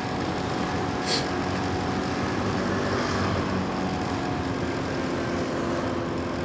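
Motorcycle engine running steadily while riding, with road and wind noise; a brief hiss about a second in.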